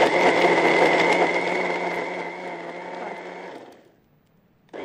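Countertop blender running at full speed, blending lemons, mint leaves and water for lemon-mint juice, with a steady motor whine. It is switched off about three and a half seconds in and spins down to a stop.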